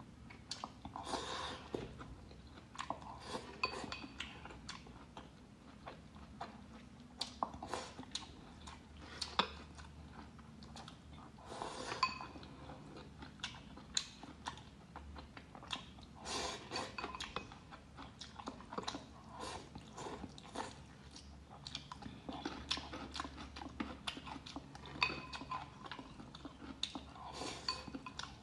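A person chewing mouthfuls of rice and braised pork belly with preserved mustard greens close to the microphone, with irregular short clicks and smacks throughout.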